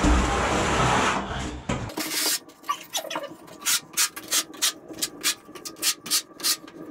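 Notched trowel scraping tile adhesive across a wall: one long continuous scrape for about the first two seconds, then a quick run of short combing strokes, about four a second.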